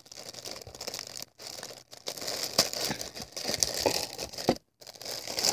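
Metallic foil wrapping being crinkled and pulled at by hand: irregular stop-and-start rustling and crackling, with a few brief gaps.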